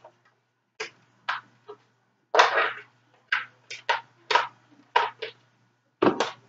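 Hard plastic parts of a Nerf Hail-Fire blaster clicking and knocking together as the ammo clip piece is handled and fitted, about a dozen short sharp sounds at uneven intervals, over a faint steady low hum.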